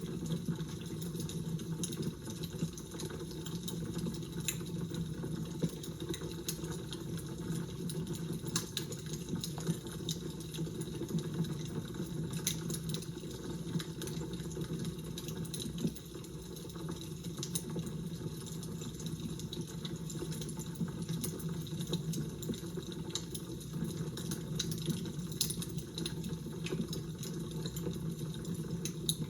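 Fire crackling: irregular small pops and snaps scattered over a steady low rushing noise.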